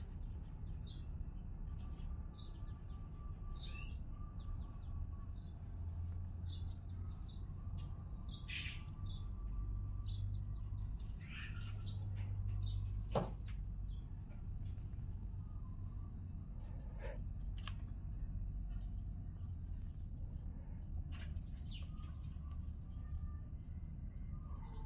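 Small birds chirping in many short, high calls, over a steady low rumble and a faint steady high whine. One sharp knock stands out about thirteen seconds in.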